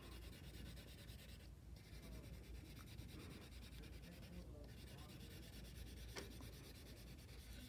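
Faint scratching of a wax crayon rubbed over paper, colouring in a large area, with a small click about six seconds in.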